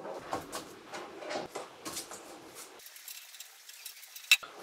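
Light knocks, taps and scrapes of thin sheet-metal bike-box panels being handled and moved. About three seconds in it goes much quieter, then one sharp click near the end.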